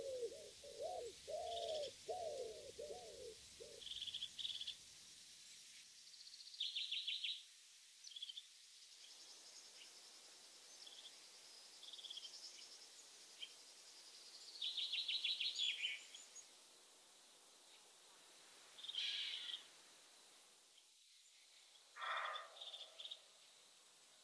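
Woodpigeons cooing, a run of low arching notes that ends a few seconds in. Small birds give short high chirps and brief trills throughout, now and then.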